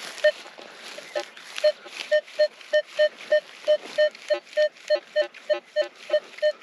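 Minelab Equinox metal detector beeping fast and regularly, about three short tones a second at one mid pitch, a few with a lower tone mixed in. It is signalling a target that reads as high as 90.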